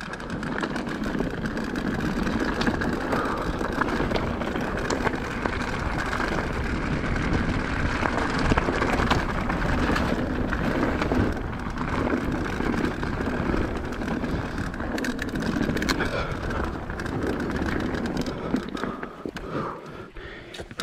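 Mountain bike descending a rough downhill trail: tyres rolling over dirt and stones, with the bike rattling and clattering over the bumps. It eases off a little near the end.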